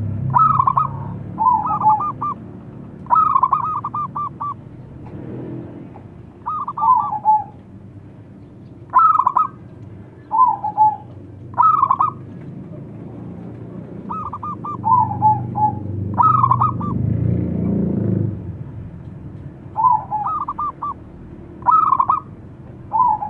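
Zebra dove (perkutut) cooing: short phrases of rapid staccato notes, repeated every one to three seconds. A low rumble swells and fades behind it in the second half.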